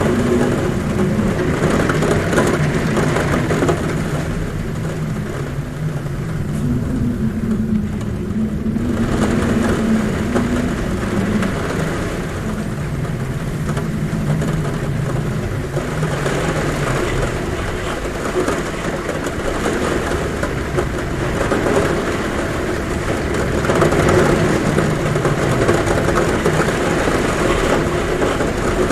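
Heavy rain falling on a roof, a dense steady hiss, with a low wavering hum of wind at a window underneath.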